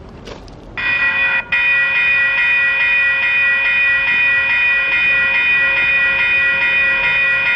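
Locomotive air horn sounding for the road crossing as the train approaches: a short blast about a second in, then a long steady blast that holds.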